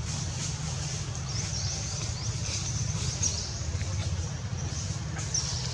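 A steady low rumble of wind on the microphone, with high, short, falling chirps from small birds repeating every half second or so.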